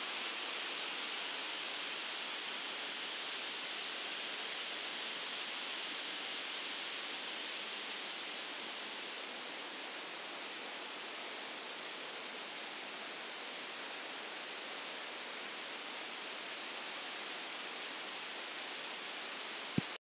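Steady rush of river rapids, whitewater tumbling among boulders, with a single click just before the end.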